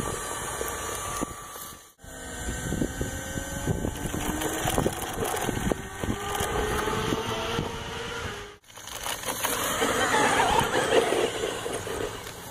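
Electric RC buggy's motor and gear drivetrain whining, the pitch rising and falling with the throttle, over crunching and knocking as its tyres climb through loose dirt. The sound cuts out abruptly twice.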